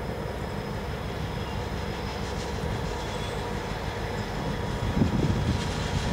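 Pair of 81 class diesel-electric locomotives (8129 and 8143) running as they approach, a steady engine rumble with a faint steady whine above it, and a brief louder low thump about five seconds in.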